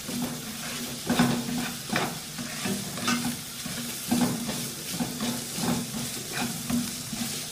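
Chicken and vegetables sizzling in a non-stick kadai over a raised flame while a spatula stirs and scrapes through them. The strokes come about one to two a second over a steady frying hiss.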